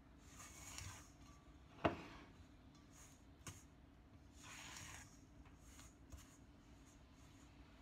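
Bread dough being mixed by hand in a stainless steel bowl: soft rubbing and squishing of the crumbly dough, with a few sharp clicks, the loudest about two seconds in.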